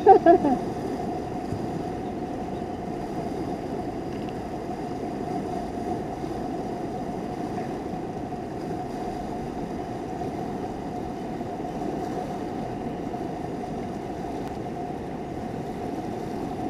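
Steady rush of fast, shallow river water flowing over a stony riffle.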